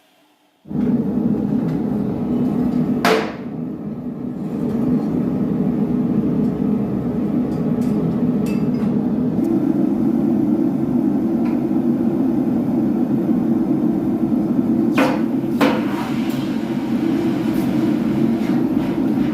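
A loud, steady workshop machine noise that starts suddenly about a second in, with a few sharp knocks over it, one near the start and two close together later.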